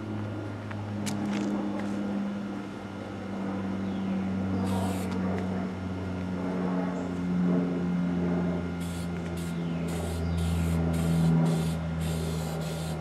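Aerosol can of Rust-Oleum Aircraft Remover paint stripper spraying onto a metal motorcycle frame: one short hiss about five seconds in, then a quick string of about eight short hisses near the end. A steady low motor hum runs underneath throughout.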